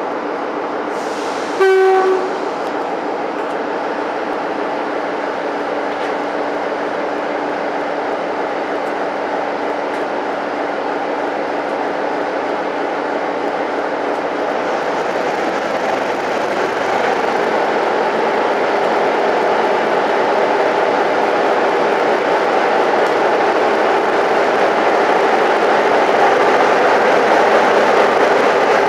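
Class 47 diesel locomotive's Sulzer twelve-cylinder engine running steadily, with one short horn blast about two seconds in. From about halfway the engine note builds and grows louder as the train pulls away and rolls past.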